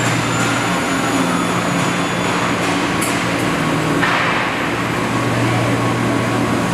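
Steady industrial machinery noise with a constant low hum, and a brief metallic click about three seconds in.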